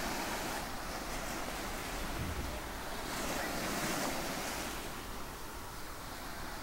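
Small ocean waves washing up onto a sandy beach: a steady wash of surf that swells slightly about three to four seconds in and eases toward the end.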